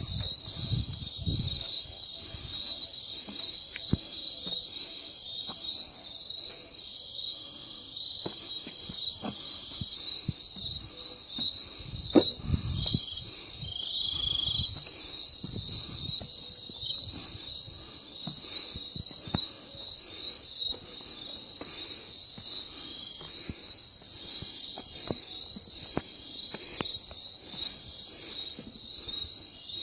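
Night insect chorus: steady, high-pitched trilling in several layers at once. A few low thumps come near the start and about twelve seconds in.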